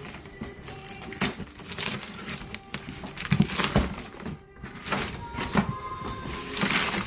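Cardboard box and packaging being handled and pulled open: irregular scraping, rustling and knocking.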